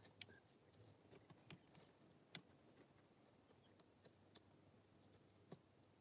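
Near silence, with faint, scattered soft clicks and ticks from chicks stirring in the straw bedding of a brooder.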